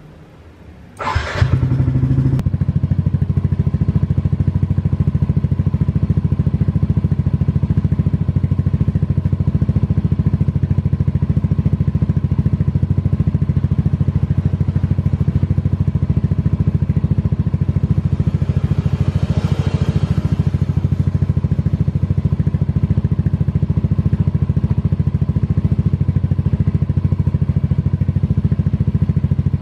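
Yamaha NMAX scooter's single-cylinder engine with an R9 Misano aftermarket exhaust, cranked and catching about a second in, then idling steadily.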